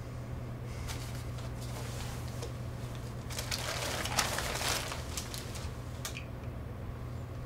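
Crumpled paper wrapping crinkling and rustling as a pistol is pulled out of it, loudest in a burst between about three and five seconds in, with a short click about six seconds in, over a steady low hum.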